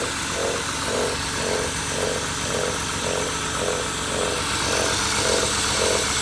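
BMW E39's M52B20 straight-six engine idling, with an extraneous noise pulsing about twice a second over the engine sound, which the owner thinks could be the flywheel.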